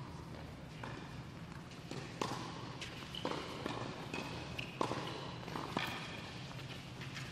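Tennis ball struck by racquets and bouncing on an indoor hard court during a serve and doubles rally: a series of sharp pops, roughly a second apart, with a slight ring from the hall. Short high squeaks of tennis shoes on the court come between the hits.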